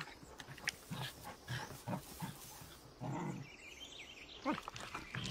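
Wolves moving over the forest floor: soft footfalls and rustling in the undergrowth, with one short, low wolf vocalization about three seconds in.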